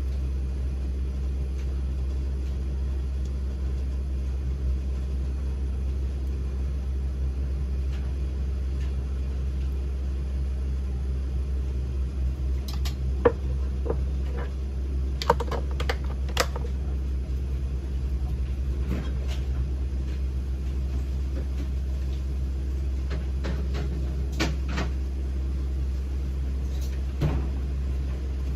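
Steady low rumble of a kitchen stove area while a pot of water heats on a gas hob. A few light clicks and taps come about halfway through, a cluster of three or four in quick succession, and a couple more near the end.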